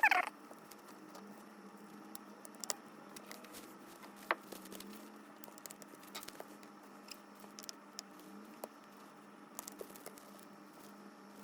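Light handling noise from working on an iPad's replacement screen: scattered small clicks and faint rubbing over a steady low hum, with a short falling squeak at the very start and a sharper click about four seconds in.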